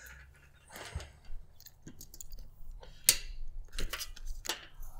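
Rustling and a few sharp clicks of red solar cables and small plastic connector parts being handled.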